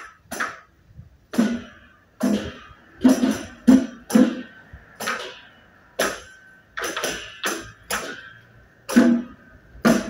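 Chinese lion dance percussion: drum and cymbals struck in loud, uneven hits a little over once a second, with a ringing metallic tone held between the strikes.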